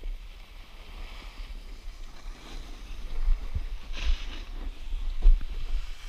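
Wind buffeting the microphone with a gusty rumble, over the hiss of a snowboard sliding and scraping across snow. The scrape swells briefly about a second in and more strongly about four seconds in.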